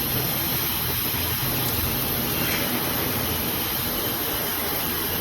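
Steady roar of aircraft engines running on an airport apron, with a constant high whine over a low hum.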